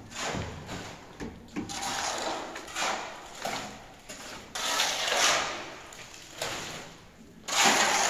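Shovel scraping and scooping through gravel and concrete mix, in several separate rasping strokes about a second long, with a few knocks between them.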